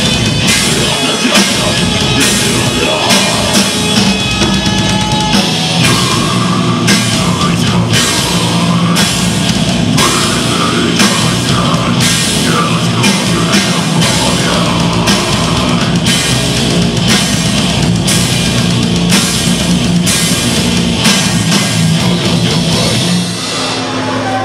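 Heavy metal band playing live: distorted electric guitars, bass guitar and a drum kit hitting a steady beat. The playing drops off slightly near the end.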